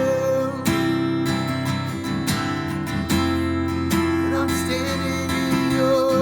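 Worship-band music between sung lines: strummed acoustic guitar with held sustained notes, no singing.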